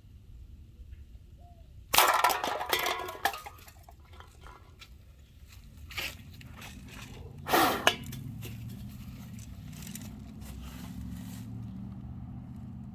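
Aluminium cans clattering and scraping in a loud burst about two seconds in, with another short clatter near eight seconds. A steady low hum sets in after that.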